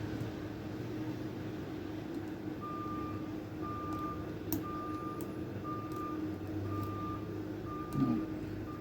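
Electronic beeping repeating about once a second, each beep about half a second long, starting about three seconds in, over a steady low hum, with a few faint clicks.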